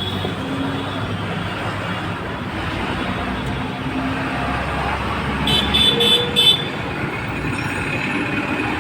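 Steady road traffic noise, with a vehicle horn tooting four short times a little past the middle.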